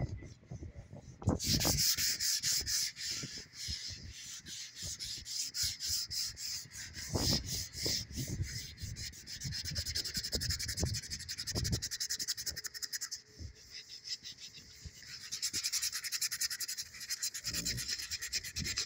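Sandpaper held in the hand being rubbed back and forth over a white panel door's face in quick, scratchy strokes, scuff-sanding it before painting. The strokes ease off briefly about two-thirds of the way through, then pick up again.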